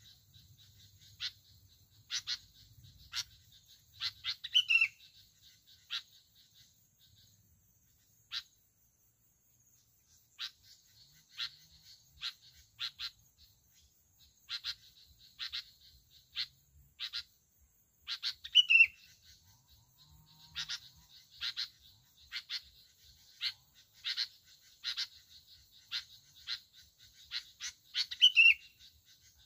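Bulbul calling: short, sharp chirping notes repeated at irregular intervals, broken three times by a louder bubbling phrase that falls in pitch, the last one near the end. Brief lull a few seconds in.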